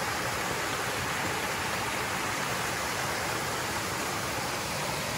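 Steady rush of flowing water, an even hiss with no breaks or distinct splashes.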